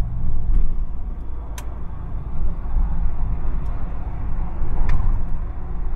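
Steady low drone of the 1970 Buick Estate Wagon's 455 V8 and road noise, heard from inside the cabin while cruising on the highway. Two brief sharp ticks come through, one about a second and a half in and one near the end.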